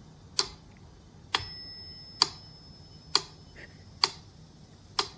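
Sharp ticks at an even beat of about one a second, like a clock ticking. One tick, a little over a second in, rings on briefly with a thin bell-like tone.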